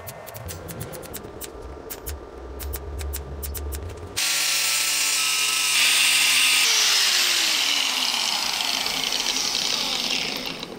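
Pulse repair welder crackling with a rapid train of sharp clicks as it lays down weld dots. About four seconds in a grinding disc starts abruptly and grinds the weld flat with a loud, steady rasp that carries a falling tone, then fades just before the end.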